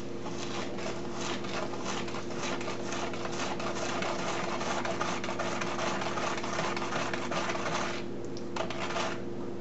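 A spoon stirring salt into soap batter in a plastic tub, making rapid scraping strokes that thin out about eight seconds in.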